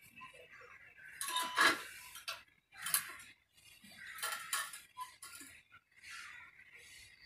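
Metal kitchen utensils and dishes clinking and clattering in a few separate bursts, the loudest about a second and a half in, with more clatters near three and four and a half seconds.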